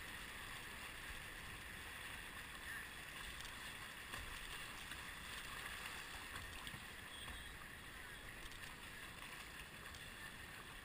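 River rapids rushing steadily past a kayak's hull, a faint, even wash of whitewater.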